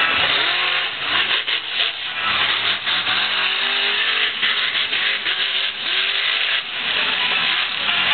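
Monster truck engine revving hard over a dense din, its pitch rising and falling several times as the truck is driven around the course.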